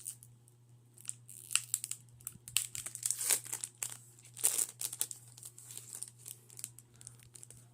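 Foil wrapper of a Pokémon card booster pack crinkling and being torn open, in irregular rustling crackles with a few louder crackles partway through.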